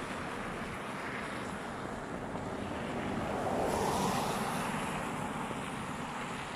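Street traffic noise: a car drives past close by, swelling and fading about four seconds in, its tyres hissing on the wet road over a steady rushing background.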